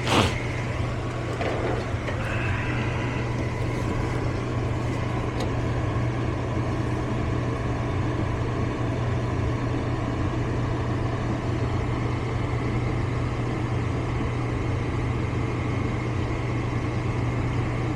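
Steady low mechanical hum with a constant noise, and a short sharp click right at the start.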